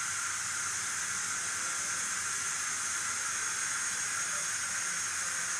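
Steady hiss with a faint high whine from a running air compressor.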